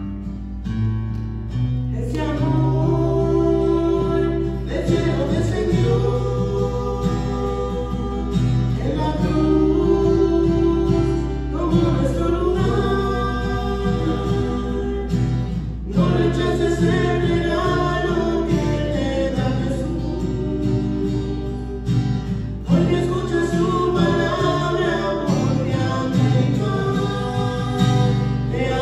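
Voices singing a Christian song in Spanish with acoustic guitar accompaniment. The guitar plays alone for about the first two seconds before the singing comes in, in phrases of a few seconds each.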